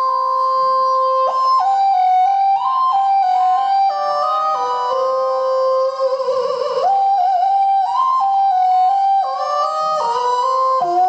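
Keyboard synthesizer played through a talk box: held chords shaped into vowel-like tones by the player's mouth, changing in steps from one chord to the next, with a wavering passage about six seconds in.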